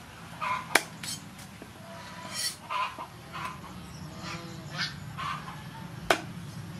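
Knife striking a wooden chopping board while a fish is cut: two sharp knocks about five seconds apart, with poultry calling repeatedly in the background.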